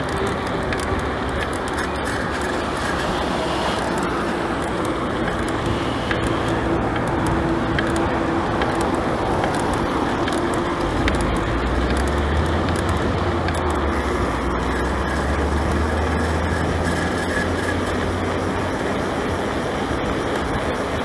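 Mountain bike rolling along a dirt track: steady ride and tyre noise, with a deeper rumble from about halfway through.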